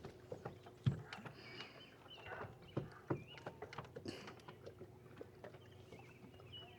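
Scattered light knocks and clicks from handling gear in a small boat or kayak, the sharpest about a second in and about three seconds in, with short high chirps mixed in.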